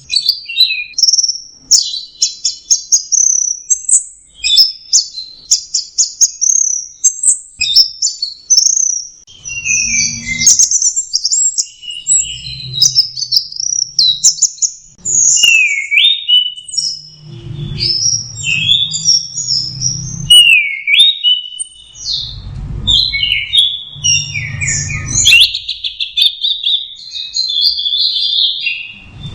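Orange-headed thrush (anis merah) singing a fast, varied song of short whistled and chattering phrases with hardly a break, full of mimicked snatches of other songs. A low rumble comes and goes underneath.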